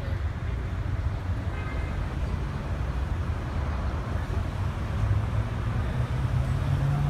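City street traffic: vehicle engines running in a steady low rumble, with one engine's hum growing a little louder and higher about five seconds in.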